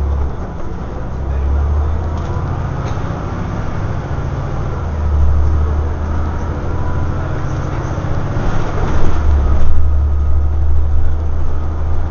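Scania OmniDekka double-decker bus running, heard from inside the upper deck: a low engine drone that swells and eases a few times and is loudest in the last few seconds, over steady road noise.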